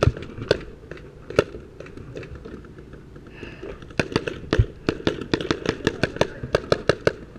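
Paintball marker firing: a few single shots, then from about four seconds in a steady string of about five shots a second.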